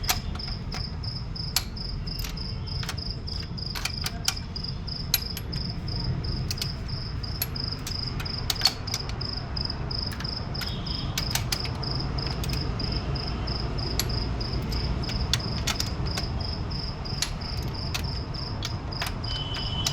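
An insect, most likely a cricket, chirping in a fast, even, high-pitched pulse without a break. Over a steady low rumble come scattered light clicks and knocks.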